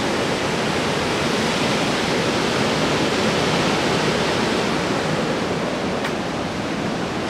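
Merced River whitewater rushing steadily over and between large granite boulders.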